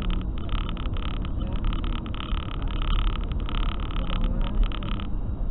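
Car driving at road speed, heard inside the cabin: a steady low rumble of engine and tyre noise with a rapid, irregular crackle of small ticks over it.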